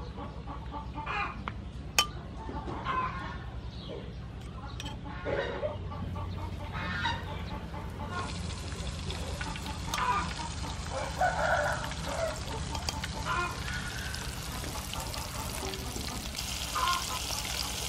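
Chickens clucking with a sharp click about two seconds in. From about eight seconds in, battered squid rings frying in hot soybean oil in a pan, sizzling with a steady hiss that grows stronger near the end.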